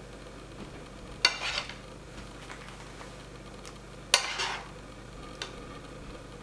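A serving spoon clinks and scrapes against the cookware twice, about a second in and again about four seconds in, as bananas foster sauce is scooped and spooned out. Each time a sudden clink is followed by a short scrape.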